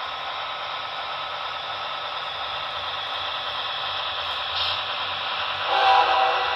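Sound-equipped model diesel locomotive running: a steady hissing engine sound that grows louder as it approaches, then a short horn blast about a second before the end.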